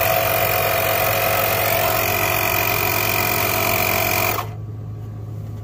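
Greenworks 24V cordless air compressor running steadily with a constant whine while inflating a truck tire, then cutting off suddenly about four and a half seconds in as it shuts itself off at the set pressure.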